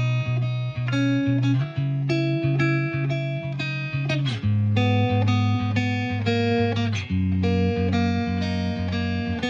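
Background music: plucked guitar melody over a steady bass line.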